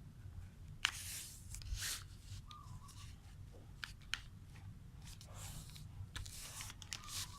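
A sheet of paper being folded in half and creased by hand: faint, scattered rustles and crisp swishes.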